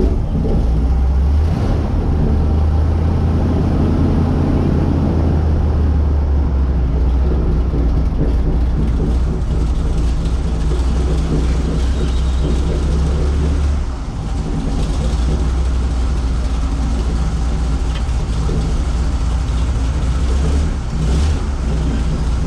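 Airboat engine and propeller running loudly and steadily. The engine picks up about a second and a half in, eases off briefly about halfway through, then comes back up.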